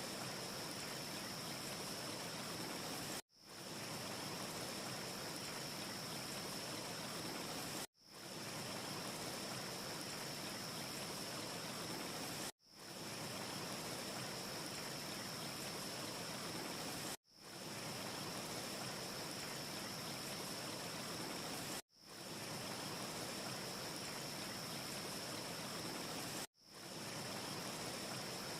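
Steady, even hiss of an ambience track, likely meant as soft wind, with a faint high whistle running through it. No fireplace crackle can be picked out. The sound cuts out for an instant and fades back in about every four and a half seconds, as a short loop restarts.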